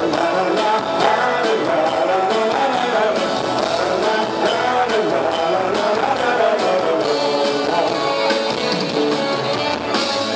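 Live rock band playing: electric guitars, bass and drums with a male singer singing over them, loud and steady.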